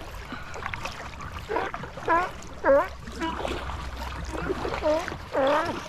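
Paddle strokes and water splashing around an inflatable paddleboard over a steady low rumble. About six short pitched cries break in, each dipping and then rising in pitch, the loudest a little after two seconds in and near the end.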